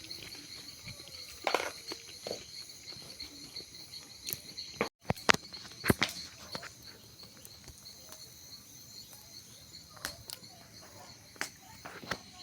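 Crickets chirping steadily in a fast pulsing trill, with scattered sharp crackles and pops over it, the loudest a little past the middle.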